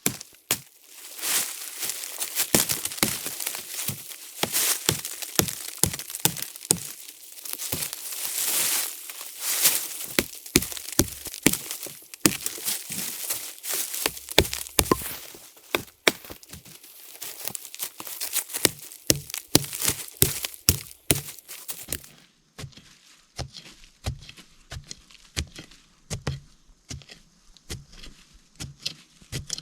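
Dry leaves, twigs and sticks crackling and snapping, with many sharp cracks over a dense rustle that thins to scattered snaps near the end.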